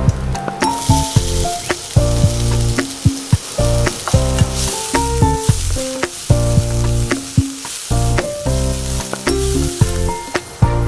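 Chopped onion sizzling as it hits hot oil in a nonstick frying pan, then frying as a spatula stirs it. The sizzle starts about a second in, over background music.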